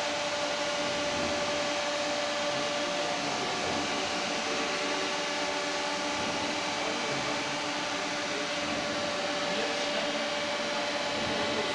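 Steady machine whir and hum with a few steady whining tones, from a powered-up Makino EU64 wire EDM machine: its cooling fans and drives running.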